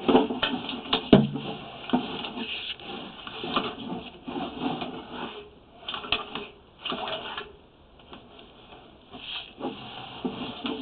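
Irregular knocks, clicks and rubbing of a sewer inspection camera's push cable being fed down the drain line, with a sharper knock about a second in.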